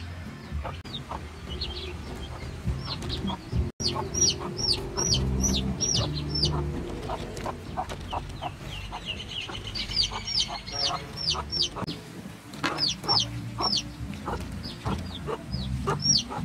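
Chickens clucking, with many short high cheeps that fall in pitch, coming in quick runs.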